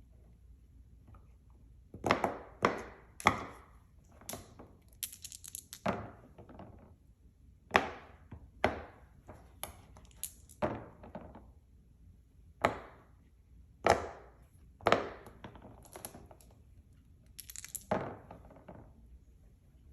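Silicone pop it fidget toy bubbles being pressed one after another, giving sharp single pops at an uneven pace of about one or two a second, with a quick run of pops about five seconds in.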